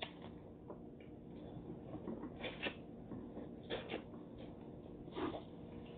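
Soft eating sounds of a person biting and chewing boiled corn on the cob: a handful of short, quiet mouth noises a second or two apart over a faint steady hum.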